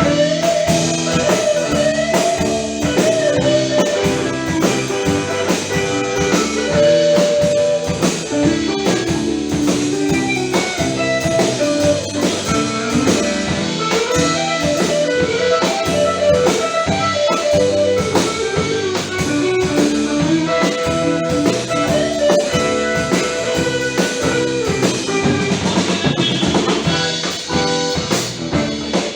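Live band playing an instrumental blues-rock passage: electric guitar carrying the melody over drum kit and bass.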